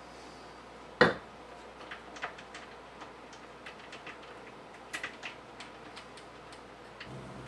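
A single sharp knock about a second in, then a scattered run of light clicks and ticks as a milk glass cabinet knob is turned by hand onto its bolt through a painted wooden cabinet door.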